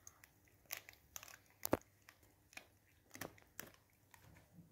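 Staffordshire bull terrier gnawing a pressed beef-hide chew bone: faint, irregular crunches and clicks of teeth biting into the hard chew, about six in all, the loudest a sharp crack near the middle.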